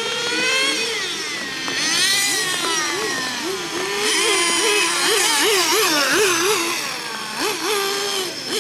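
Several 1/10-scale nitro RC racing cars' small glow-fuel engines running at high revs, overlapping. Their pitch rises and falls quickly and repeatedly as they accelerate and lift off through the corners, loudest near the middle.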